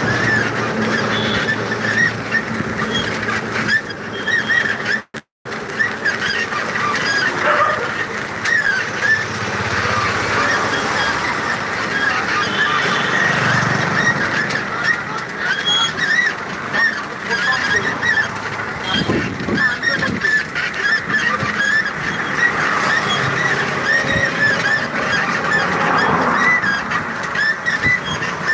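Night street ambience: traffic and general street noise, with a constant chatter of short, high, squeaky chirps throughout.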